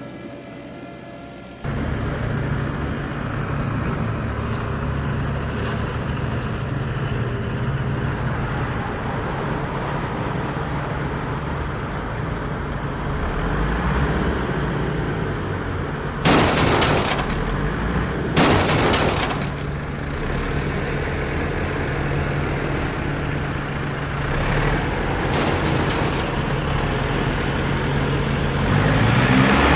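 Heavy vehicle engine running steadily with a deep rumble. Midway come two loud bursts of hissing noise, each about a second long, then a fainter one later.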